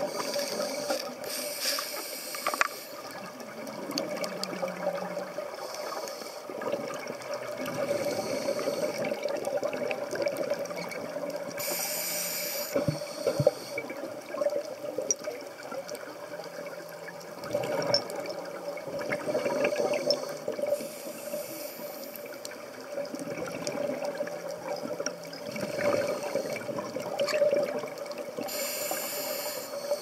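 Scuba divers' exhaled bubbles gurgling and rushing, heard underwater, coming in recurring bursts every few seconds with each exhalation through the regulator. A steady low hum runs underneath.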